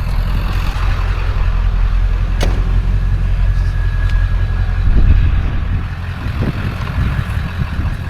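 Vehicle engine and road rumble while driving, a steady low drone, with a sharp click about two seconds in.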